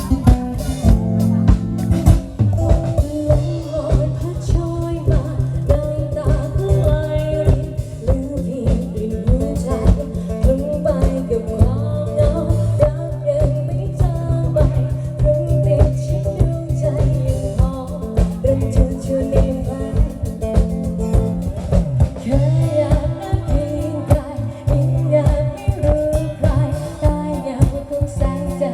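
Band music with a singing voice over drum kit and guitar, keeping a steady beat.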